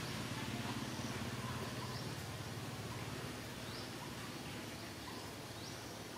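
Faint, short, high upward chirps from a small animal, repeating about once a second, over a low motor hum that fades away in the first few seconds.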